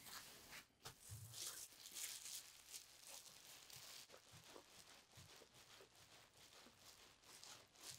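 Near silence, with faint crinkling of plastic sheeting and bubble wrap being handled and folded around wet wool in the first few seconds.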